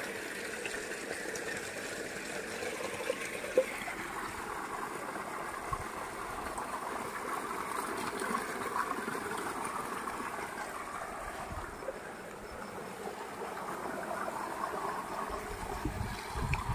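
Tubewell water gushing from an outlet pipe and splashing into a brick tank: a steady rushing of water, with one sharp knock about three and a half seconds in.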